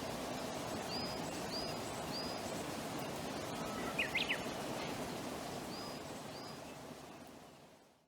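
Outdoor ambience: a steady hiss with a bird calling, a few short high notes in two groups and a brief twittering cluster about four seconds in. It fades out near the end.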